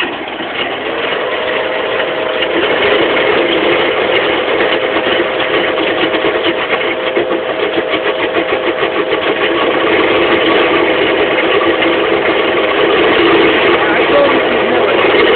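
Takeuchi TL240CH compact track loader running at full throttle, driving its 30-inch cold planer attachment, with a rapid rhythmic chatter from the spinning planer drum. A steady whine sets in about a second in, and the noise grows gradually louder.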